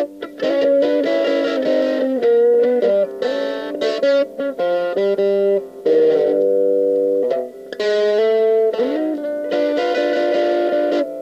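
Solo electric guitar through a distorted 'brown sound'-style amp tone, playing boogie rock riffs in short phrases with brief breaks between them. A note is bent upward about nine seconds in.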